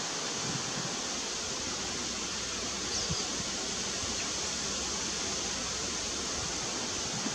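Steady rushing outdoor background noise, an even hiss with nothing standing out, and one faint, brief high chirp about three seconds in.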